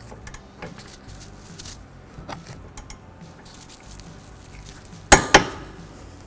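Ratchet and socket snugging the rear brake caliper bracket mounting bolt: scattered light ratchet ticks and metal clicks, then two sharp metallic clanks about a quarter second apart a little after five seconds in.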